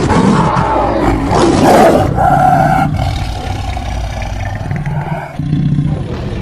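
Fantasy-creature sound effects built from animal roars: a loud rough roar, then a shorter, higher held cry about two seconds in, followed by quieter rasping sound, with a new sound cut in abruptly near the end.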